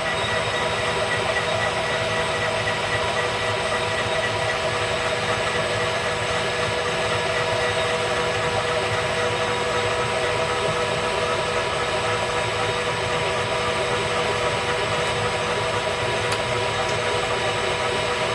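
Metal lathe running steadily, its motor and gearing giving a constant hum with a steady high whine, while an aluminum workpiece is faced square.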